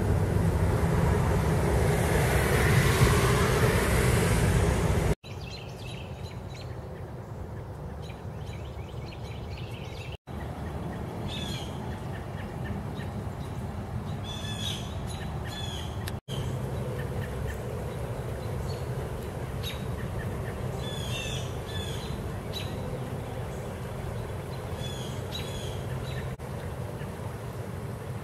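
A car passing on a highway, loudest about three seconds in, cut off abruptly about five seconds in. After that comes a quieter steady rush of flowing floodwater, with birds chirping in short bursts of calls several times.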